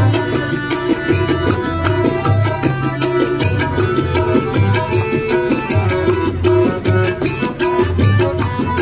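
Instrumental passage of a Nepali bhajan: tabla plays a steady rhythm with deep booming bass strokes, under a held melodic line.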